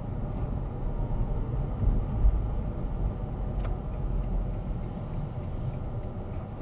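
Low, steady rumble of a car's engine and tyres heard from inside the cabin as it rolls slowly, with a faint single click about three and a half seconds in.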